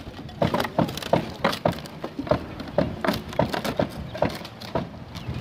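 Old wooden roof shingles being pried and ripped off the roof deck with shingle tear-off forks: irregular sharp cracking and splintering of wood, about three snaps a second.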